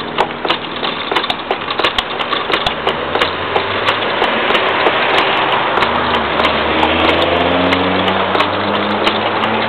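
Homemade wooden treadle lathe turning a rough, not-yet-round wood blank while a hand gouge roughs it down, giving a rapid, irregular run of sharp clicks and knocks as the tool bites the uneven surface. About six seconds in, a low hum that rises in pitch comes in underneath.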